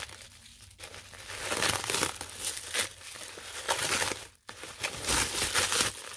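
Bubble wrap crinkling and crackling as hands work it around a wrapped crystal, irregular crackles with a brief break about four seconds in.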